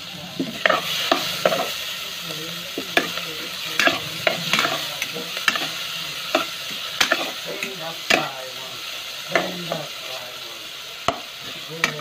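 Metal spatula scraping and clinking against a metal pot in irregular strokes, about one or two a second, while it stirs tomatoes, onion and ginger sautéing in oil, over a steady sizzle.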